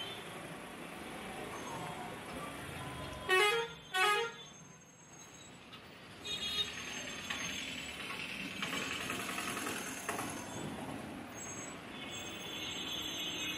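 Two short vehicle horn toots in quick succession a few seconds in, over steady street traffic noise.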